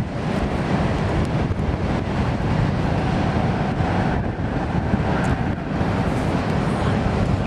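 Freight train rolling across a steel girder bridge: a steady low rumble, with wind buffeting the microphone.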